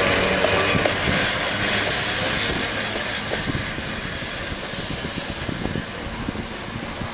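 Two-car wooden electric rapid-transit train rolling past and away down the track, wheels clicking over the rail joints, the sound fading as it recedes.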